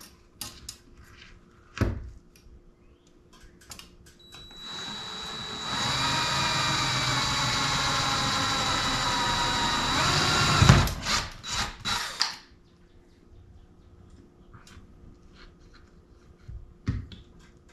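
Cordless drill running for about six seconds, boring a quarter-inch pilot hole down through the fiberglass hardtop, its whine sagging slightly in pitch under load. It stops with a loud thump, followed by a few knocks and then light clicks.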